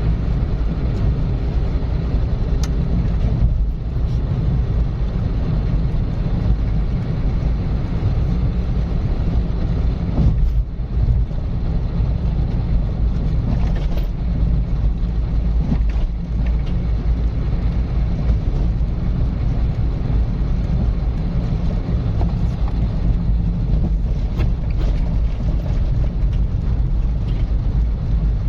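Car driving at a steady speed: a continuous low rumble of engine and tyre road noise that holds even, with a few faint brief knocks.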